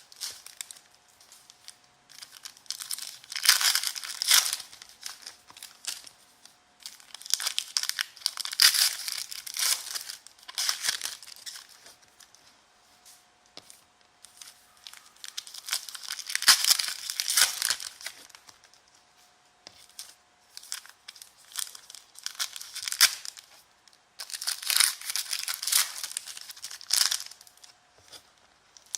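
Foil trading-card packs being torn open and their wrappers crinkled by hand, in several bursts of ripping and crackling a few seconds long with short pauses between them.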